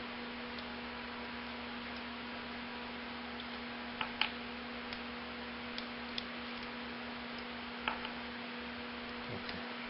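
Steady electrical hum with a few light clicks and taps, a pair about four seconds in and another near eight seconds, as small metal parts are handled.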